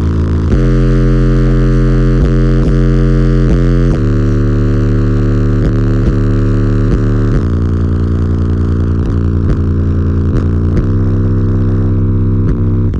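Very loud bass from a car audio system of twelve 15-inch Otis Designs subwoofers in a 6th-order bandpass enclosure: sustained deep bass notes that step to a new pitch every one to three seconds, thick with buzzing overtones.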